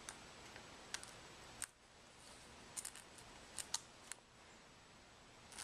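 Faint, sharp clicks at irregular intervals, about nine in all, as small shards of cracked screen glass are pried off a phone's frame with a razor blade.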